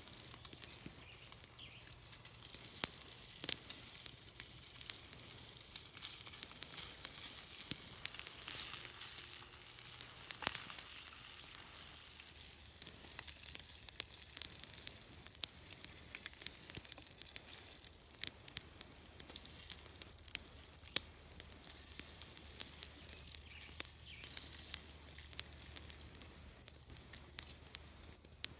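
Bacon frying over a small campfire: a steady high sizzle with frequent sharp pops throughout.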